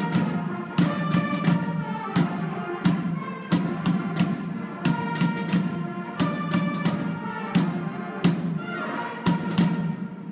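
A brass and drum band, with trumpets, sousaphone, bass drum and snare drums, playing a tune with frequent drum strokes. The music fades out near the end.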